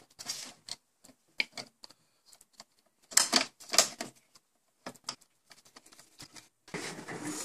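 Scattered small clicks and taps of a 3D-printed plastic filament-monitor mount being handled and fitted onto a 3D printer's back panel, with two louder knocks a little over three seconds in and denser handling noise near the end.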